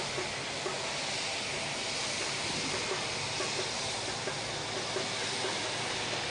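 Airbus A330 jet engines at low taxi thrust, a steady even hiss and rush with no change in level.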